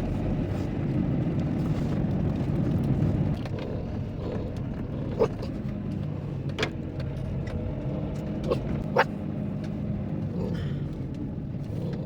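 Road and engine noise heard inside a Renault Kangoo's cabin while driving: a steady low rumble that eases a little after about three seconds, with a few short sharp clicks later on.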